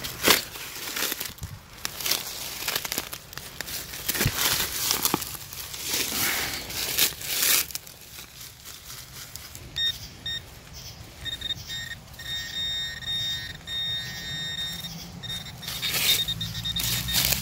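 Crunching and scraping of digging in soil, then about ten seconds in a metal detector's high electronic tone starts sounding, steady with short breaks, as it is held over a buried metal target.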